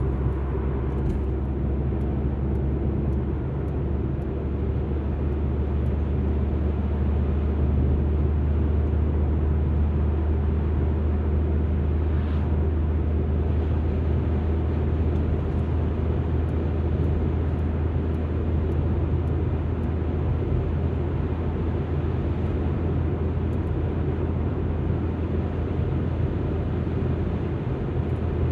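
Alfa Romeo MiTo driving at a steady pace: a continuous low rumble of engine and tyre noise.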